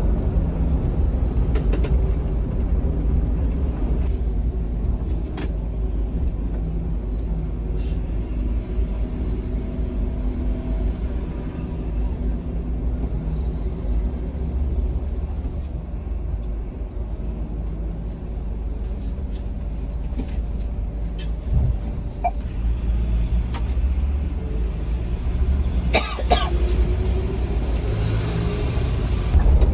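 Scania K360iB coach running on the road: a steady low engine and road rumble, with a few sharp clicks and a brief squeal about 26 seconds in.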